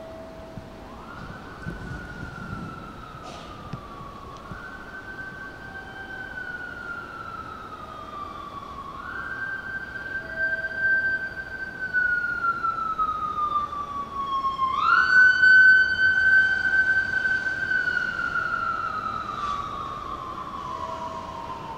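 Emergency-vehicle siren wailing: four times the pitch climbs quickly, holds, then slowly slides down, growing louder toward about two-thirds of the way through before easing off.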